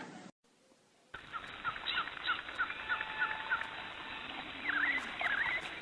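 Small birds chirping: a string of short, quick chirps about three a second, joined near the end by louder swooping calls. The sound starts after a brief silence and sits over faint background hiss.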